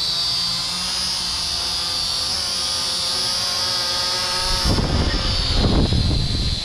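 Small Kaptur GPS II quadcopter hovering close by, its motors and propellers giving a steady high-pitched whine. About four and a half seconds in, as it comes overhead, a loud gusty rumble of air buffeting the microphone joins the whine.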